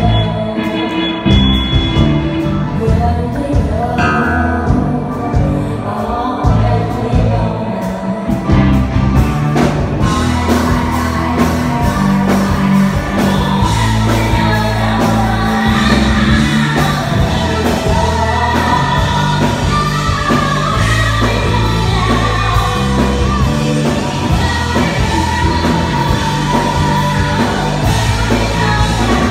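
Live rock band playing, with a woman singing into a microphone over drums, electric guitar and keyboard. The music grows fuller about ten seconds in.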